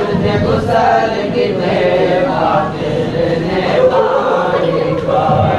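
Many men's voices chanting a noha, a Shia mourning lament, together as a crowd.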